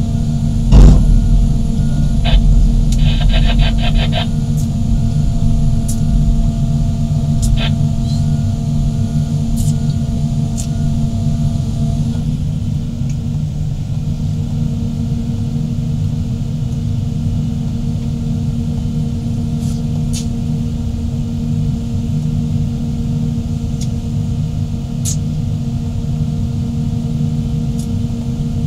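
Diesel engines of several large excavators running steadily, a deep rumble with a constant hum. A sharp knock comes about a second in, and a brief rattle follows a couple of seconds later.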